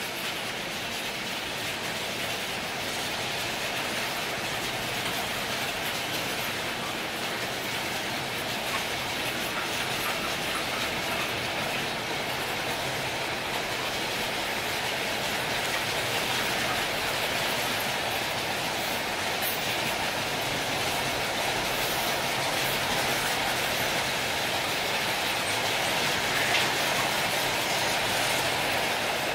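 Double-stack container freight wagons rolling past close by: a steady, continuous noise of wheels running on the rails.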